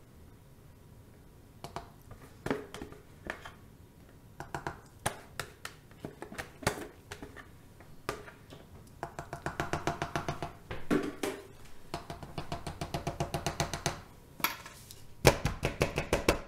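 Scattered hard knocks, then runs of quick, even taps about ten a second from about nine seconds in and again near the end. These are the sounds of soap-making tools working cold-process soap batter in a plastic pitcher over a wooden loaf mold.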